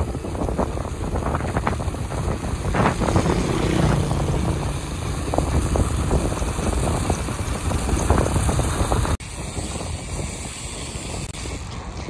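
Wind buffeting the microphone of a bicycle-mounted camera, with tyre and road noise from riding on pavement and scattered short knocks. About nine seconds in it cuts off abruptly to a quieter, steadier rush.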